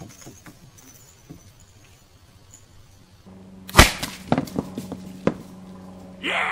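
A single sharp, very loud impact about four seconds in, followed by several lighter knocks as bowling pins clatter down. A steady low hum runs underneath from just before the impact.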